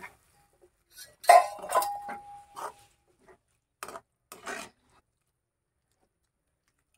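Steel spatula clinking and scraping against a metal kadai as curry is stirred: a cluster of clinks about a second in, one ringing briefly, then a few more strokes around four seconds.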